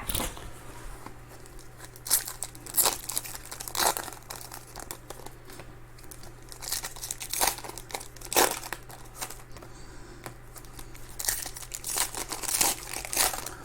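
Plastic and foil card-pack packaging crinkling and tearing in short irregular bursts as trading-card packs are handled and ripped open.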